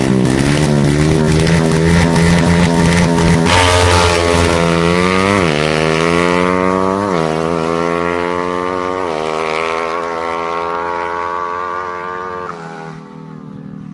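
Racing motorcycle engine at high revs, accelerating through the gears: its note climbs, drops sharply at three upshifts and climbs again, then holds before dropping away near the end.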